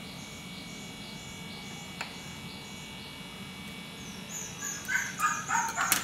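A run of short, high-pitched animal calls near the end, over a steady low hum, with a single click about two seconds in.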